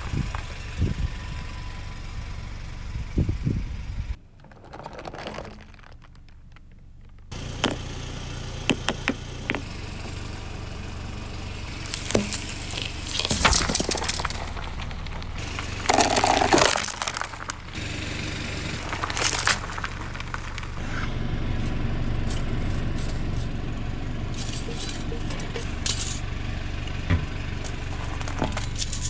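A car tyre rolling slowly over objects and crushing them, with sharp cracks, snaps and crunches coming in several clusters. A car engine idles steadily and low underneath.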